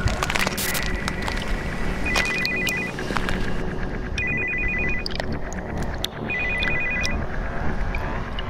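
Mobile phone ringing: a trilling ringtone, three rings about two seconds apart.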